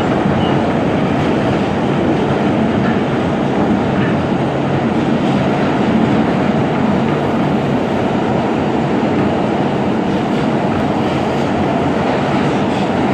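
Siemens R160B subway train running at speed through the tunnel, heard from inside the car: a steady, loud rumble of wheels on rails.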